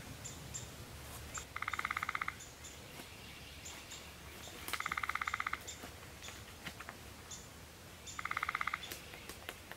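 Birds in a forest: a rapid, even trill repeated three times, about three seconds apart, with short high chirps between.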